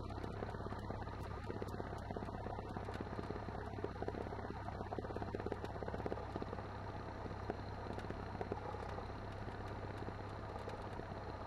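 Cessna 172N's Lycoming four-cylinder engine and propeller running at low taxi power, heard as a steady drone inside the cockpit.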